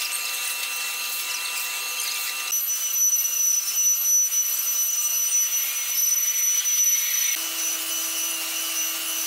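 SF2040QG-4S 4-axis CNC router spindle carving a foam block on the rotary axis: a steady high whine over a hiss of cutting. The set of tones shifts abruptly about two and a half seconds in and again near the end.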